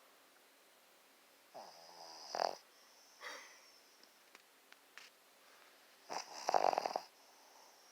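An animal snoring: a long rattling snore about a second and a half in, a softer breath a second later, then a louder rattling snore near the end.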